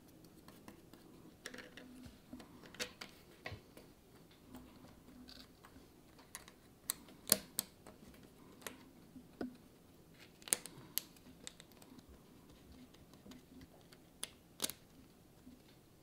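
Small 3D-printed plastic model parts being handled and pressed together by hand and with a small tool: irregular light clicks and taps, with a few sharper snaps.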